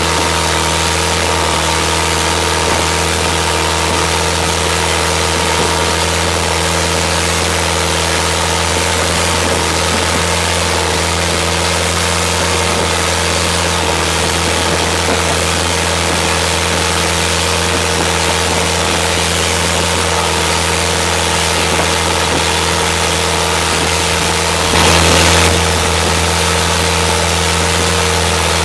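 A boat's engine running steadily at speed, with water rushing and spraying along the hull. A brief louder rush of noise comes a few seconds before the end.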